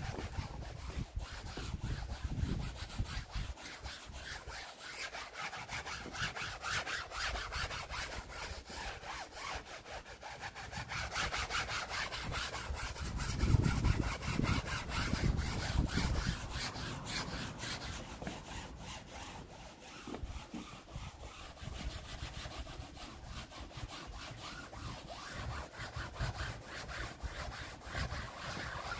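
A wet cloth scrubbed back and forth over a mattress's fabric cover: a steady run of quick rubbing strokes. A louder low rumble comes in about halfway through.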